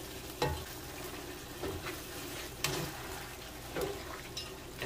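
Beef and broccoli simmering in a thick brown sauce in a nonstick wok, with a steady low sizzle. A utensil stirring the pan scrapes and knocks against it about five times.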